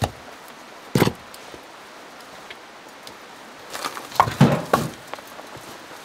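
Firewood logs being set down and stacked on the ground, wood knocking on wood: one knock at the start, a louder one about a second in, then a quick cluster of clunks around four to five seconds in.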